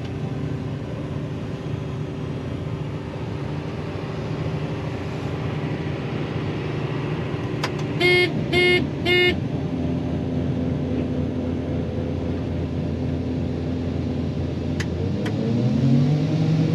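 John Deere 9500 combine's engine running steadily, heard from inside the cab. About eight seconds in come three short, high beeps, and near the end the engine note rises as it revs up.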